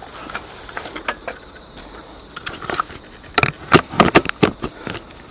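Handling noise from a camera being carried and set down: a quick run of sharp clicks and knocks about three and a half to five seconds in, after a few seconds of faint hiss.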